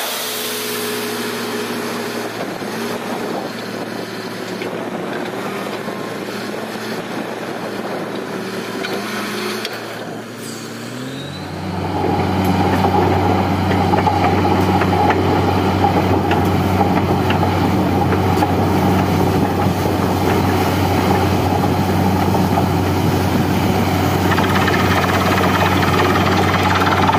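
Truck-mounted borewell drilling rig running steadily. About eleven seconds in, its engine note drops lower and grows louder, then holds steady.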